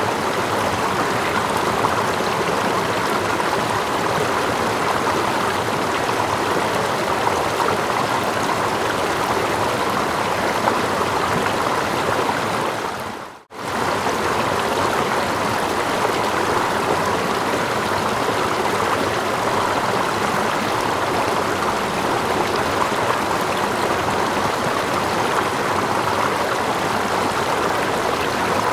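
Running water of a stream, a steady rushing layered with water lapping close by and a small waterfall further off. About halfway through, the sound fades out briefly and comes straight back.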